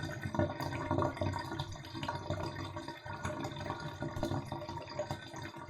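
Bathtub water draining down the plughole: a continuous, uneven water sound with many small irregular pops and drips.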